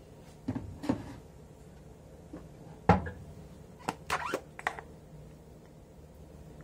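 A small plastic food container and its lid being handled: a few sharp clicks and knocks, the loudest about three seconds in, and a quick run of plastic clicks near four to five seconds.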